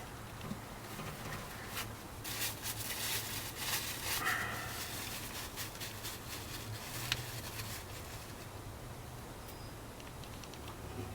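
Faint hand-work noises of parts being handled on the car: rustling and scattered light clicks, busiest a couple of seconds in, with a single sharper click a little past the middle, over a steady low hum.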